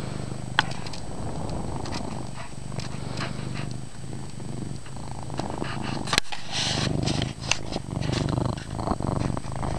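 Domestic cat purring loudly and steadily, with a sharp click a little past the middle followed by brief rustling.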